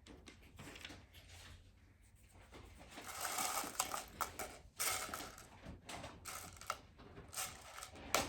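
Small plastic Lego pieces clicking and clattering as they are handled and pressed together, with a busier stretch of rattling from about three to five seconds in.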